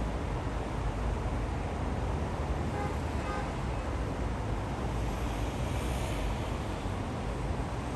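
Steady low rumble of distant city road traffic, with a faint short pitched sound about three seconds in and a passing hiss around six seconds in.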